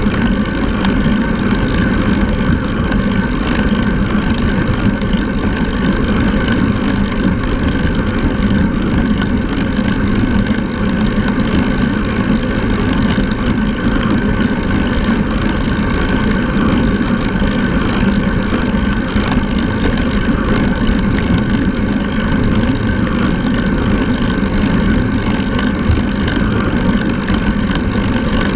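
Steady wind buffeting on the microphone of a handlebar-mounted action camera, mixed with the rush of road-bike tyres rolling on asphalt at speed.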